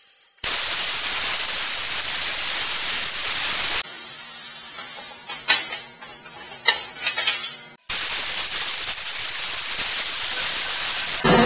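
Hand-held plasma cutter cutting through metal rack tubing: two long bursts of steady, loud hiss, each about three and a half seconds, the second starting about eight seconds in. Between them come clinks and knocks as the metal rack is handled.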